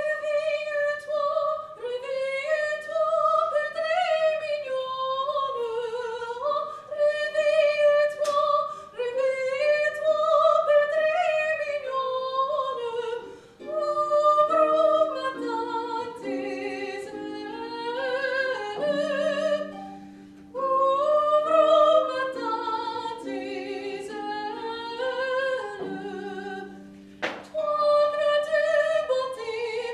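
Mezzo-soprano singing a classical art song with wide vibrato, accompanied by a concert harp whose lower notes come in under the voice about halfway through.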